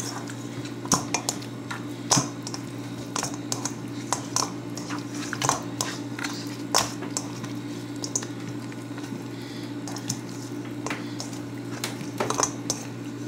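Meat being mixed into Italian dressing in a dish for a marinade: irregular wet squishing with scattered short clicks, over a steady low hum.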